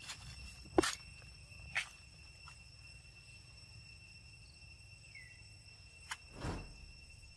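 Steady drone of insects, several high even tones together, broken by a few sharp clicks, the loudest about a second in, and a soft low thump near the end.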